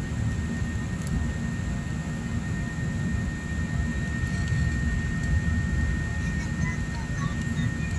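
Jet airliner cabin noise during the climb after takeoff: a steady, low-heavy engine and airflow noise with a thin, steady high whine over it.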